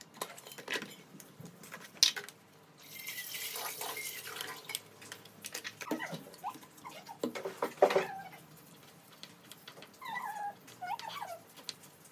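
Kitchen handling sounds while cooking: scattered clicks and knocks of utensils and dishes, a hiss like running water for about two seconds near the start, and a few short squeaky sounds near the end.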